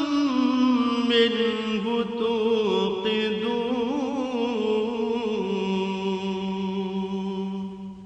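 A man reciting the Quran in Arabic as a melodic chant (tilawat), his voice sliding through ornamented, wavering turns. It settles into one long held low note for the last few seconds.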